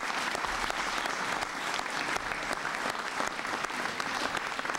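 Audience applauding: many hands clapping together in a dense, even patter.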